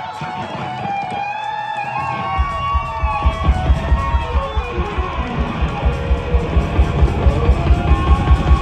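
Live rock band: an electric guitar plays lead with bending notes. About two and a half seconds in, a fast, steady low pulse of roughly four beats a second comes in underneath and grows louder.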